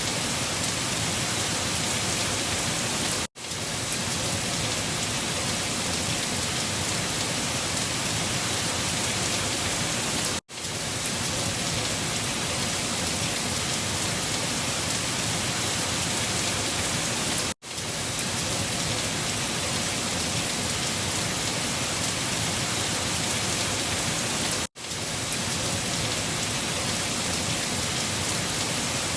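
Steady, dense rain falling, an even hiss. It cuts out for an instant about every seven seconds, four times, and fades quickly back in, the seam where the looped rain recording restarts.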